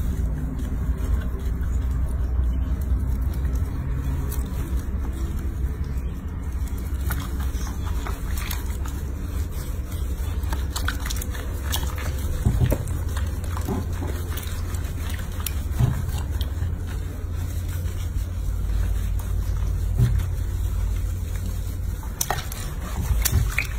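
Water sloshing and splashing in a washbasin as hands rub and wash a baby monkey, over a steady low rumble. A few louder knocks or splashes come in the second half.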